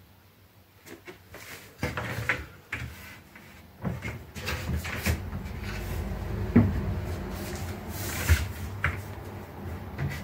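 Chipboard wardrobe doors on concealed cup hinges being opened, with several sharp clicks and knocks over handling noise, starting about two seconds in.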